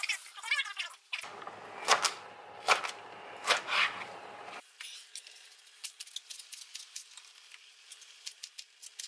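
Chef's knife cutting fresh artichokes on a cutting board. A few sharper knocks come in the first few seconds, then a quicker run of light clicking cuts.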